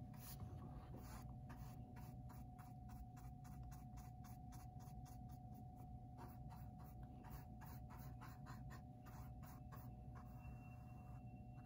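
A large paintbrush stroking paint onto a stretched canvas: faint, quick scratchy swishes about three a second, pausing briefly near the end. A faint steady hum runs underneath.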